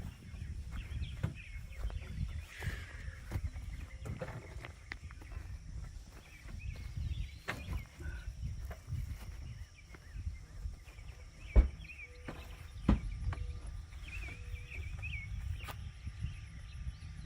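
Scattered knocks and clunks of boards and tools being handled while a sleeper bunk is fitted, the loudest sharp knock about two-thirds of the way through, over a low rumble, with faint bird chirps.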